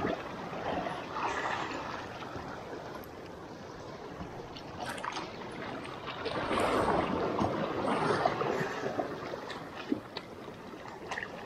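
Small waves lapping and sloshing over shallow rocks, with water trickling and splashing close by; the wash swells louder for a few seconds in the middle.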